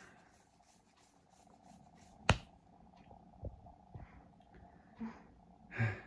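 Quiet room tone broken by one sharp click a little over two seconds in, then a few softer clicks and a short breathy sound near the end.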